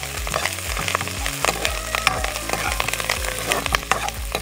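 Steel ladle scraping and knocking against a kadai while peanuts, green chillies, garlic and curry leaves sizzle in hot oil as they are stirred.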